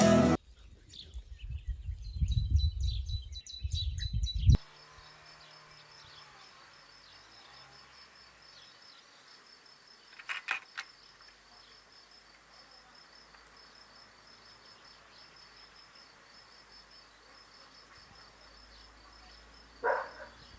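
Crickets chirping in a steady, even pulsing rhythm in quiet rural surroundings. For the first four seconds a low rumble with a few bird chirps sits under them, and a couple of short knocks come about ten seconds in.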